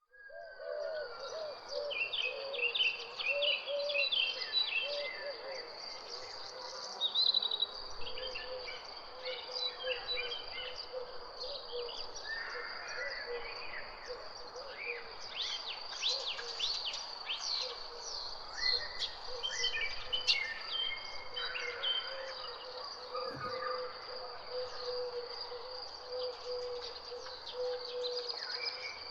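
Outdoor dawn-chorus-style ambience: many birds chirping and singing in short trills over a continuous high-pitched insect or cricket trill. A low, steady warbling tone runs underneath for most of the time.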